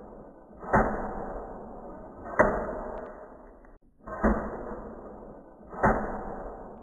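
Four heavy, echoing thuds at a slow, even pace, about a second and a half apart, each fading away slowly, with a faint high chirp just before each one.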